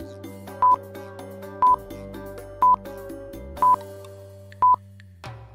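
Countdown timer sound effect beeping once a second, each a short, loud, high beep, over soft background music. The music drops out briefly near the end while the beeps continue.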